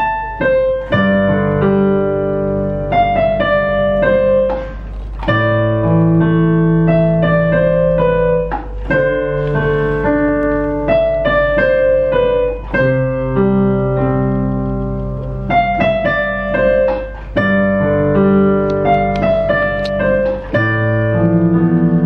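Digital piano played by a beginner: a simple song, its melody moving in short repeated phrases over held bass notes.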